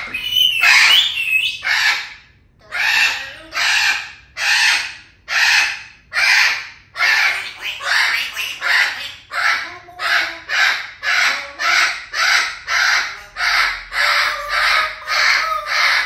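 Parrot giving a long run of loud, harsh squawks, one after another, about one every two-thirds of a second at first and quickening to about two a second near the end, with a short rising whistle near the start.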